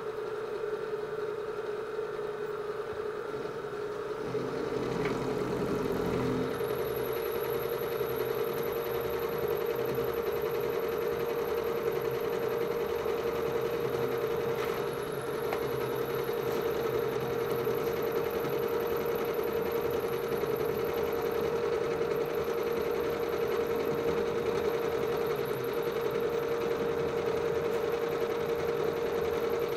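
Precision Matthews PM-727 bench milling machine running with a steady hum, its 3/8-inch roughing end mill cutting into an aluminium disc lubricated with WD-40. It gets louder about four seconds in as the cut starts, and a thin high whine joins about two seconds later and holds steady.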